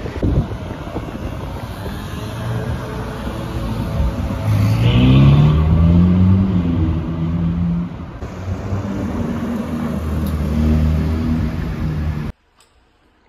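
Sports car engines on a city street: a Ferrari California's V8 revving up as it pulls away, its note rising sharply about five seconds in, then a Porsche 911 GT3's flat-six pulling through a turn. The sound cuts off suddenly near the end.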